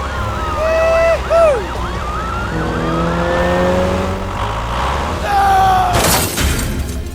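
Emergency vehicle siren sound effect, a fast rising-and-falling wail, over a steady low hum, with a sudden loud burst of noise about six seconds in.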